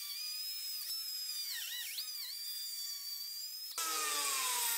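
Pneumatic cut-off wheel cutting sheet steel of a car's donor rocker panel: a high, steady whine whose pitch dips briefly as the wheel bites. Near the end it turns to a louder, lower whine with more hiss that slowly sinks in pitch.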